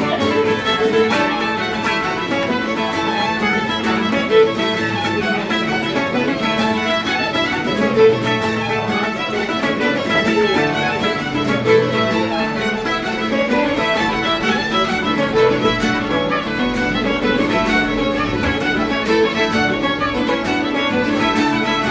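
Fiddle playing a lively Scottish pipe jig, accompanied by strummed guitar and resonator tenor guitar, in a steady, even rhythm.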